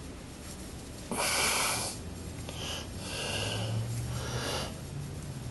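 Breathing close to the microphone: a breath about a second in and a second, softer one around three to four seconds in, over a faint low hum.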